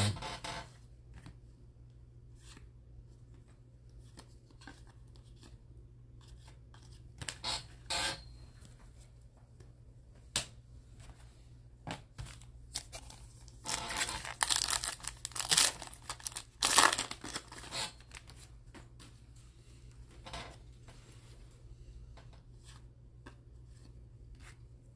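Foil wrapper of a Donruss baseball card pack being torn open and crinkled, in a few short rustling bursts, the longest and loudest about halfway through, with light clicks of cards being handled.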